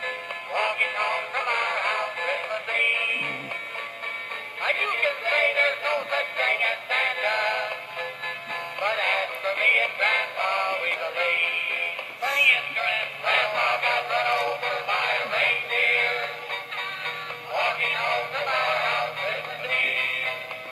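A Christmas song playing, with a voice singing over the music. The sound is thin, with most of it in the middle range.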